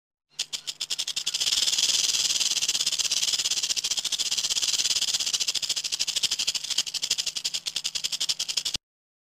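Rattlesnake buzzing its tail rattle: a rapid run of clicks that starts as a few separate shakes and builds within about a second into a steady buzz, then cuts off suddenly near the end.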